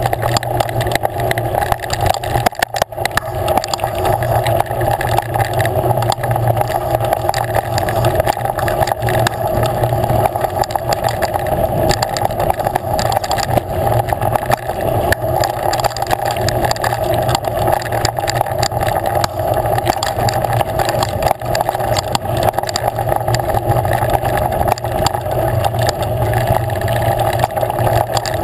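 Engine of an off-road vehicle running steadily at an even pitch while driving over a rough dirt trail, with frequent rattles and knocks from the bumps.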